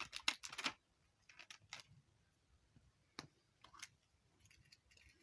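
Small plastic toy-surprise packaging being handled and opened by hand: a quick run of sharp clicks and crinkles at the start, then scattered single faint clicks.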